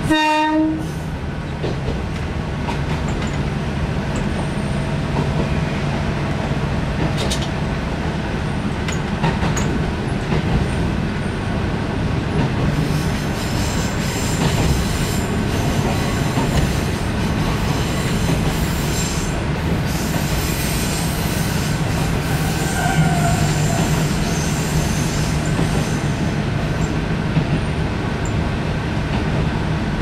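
Diesel railcar running steadily along the track, with a constant engine drone and the clatter of wheels over the rails. A short horn blast sounds right at the start.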